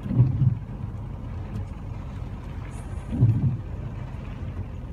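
Car engine and road noise heard from inside the cabin while driving on a flooded street: a steady low drone, with a louder low swell twice, about three seconds apart.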